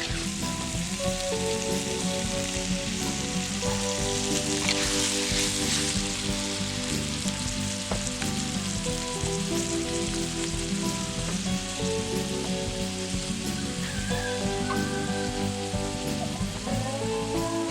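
Food frying in oil in a pan, with a steady sizzle and a louder burst of hissing about five seconds in.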